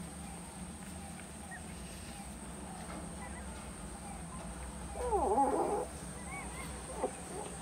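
Eight-day-old puppies nursing, with a few faint squeaks and one puppy giving a loud wavering cry, falling then rising in pitch, lasting nearly a second a little past the middle. A short click comes near the end.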